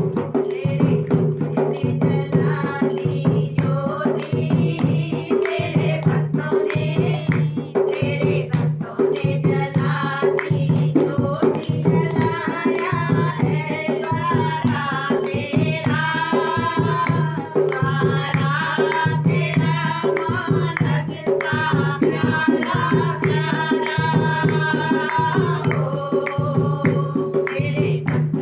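A woman singing a Hindu devotional song (bhajan) while beating a steady rhythm on a dholak, a two-headed barrel drum with metal tuning bolts.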